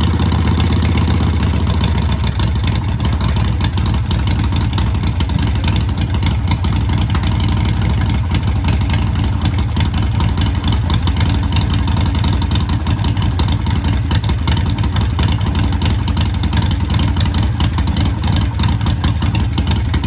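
Harley-Davidson Sportster's air-cooled V-twin, newly bored to 1275 cc with a Hammer big-bore kit, running steadily at idle through Vance & Hines Short Shots exhaust, freshly started for its break-in.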